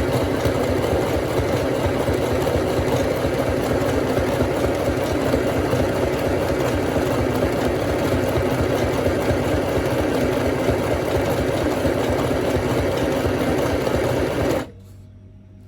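FHSM-505A sewing machine running steadily while stitching, its motor and needle mechanism making a fast, even chatter; it stops suddenly near the end.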